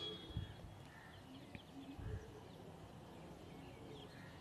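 Chopped tomato and drumstick pieces tipped from a steel plate into curry in a pressure cooker, landing with two soft dull thumps about half a second and two seconds in. Small birds chirp faintly in the background.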